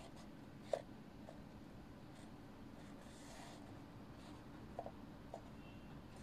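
Faint crunching of dry, crumbly food under a socked foot on a wooden floor: one sharp crack about a second in, a soft crumbling rustle midway and a few small clicks near the end.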